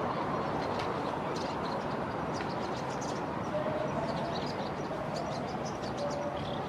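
Bull-headed shrike calling: short high calls repeated irregularly, over a steady background rumble of traffic.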